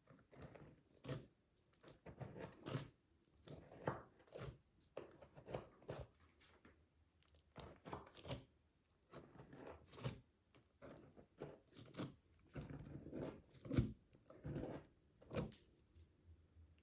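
Slime being squished and pressed by hand, giving irregular sticky crackles and pops, about one or two a second, with a denser run of crackling near the end.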